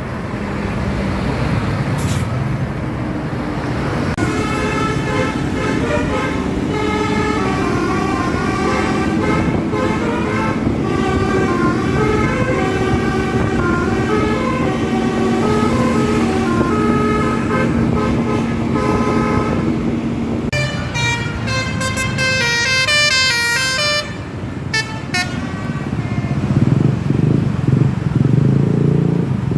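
Telolet basuri bus horn playing a tune, a string of stepping notes, over a steady engine and traffic rumble. About twenty seconds in, a quicker, higher run of notes sounds; near the end the rumble grows louder.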